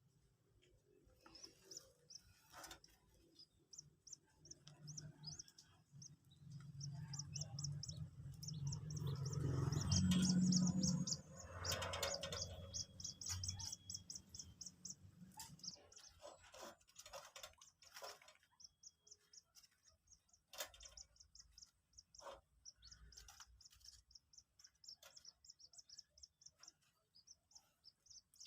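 Two-day-old white-breasted waterhen chicks peeping: short, high, thin peeps repeated several times a second. A low rumbling noise swells up in the middle, is the loudest thing there, and stops about halfway through.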